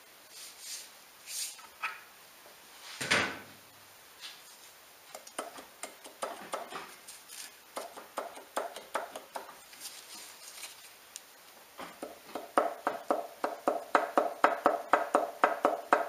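Metal clinks and clicks of hand tools and bearing caps being handled on a Ford Duratec 2.3 engine block during teardown to inspect the bearings. There is a louder clunk about three seconds in, and over the last four seconds a fast, even run of clicks, about five a second.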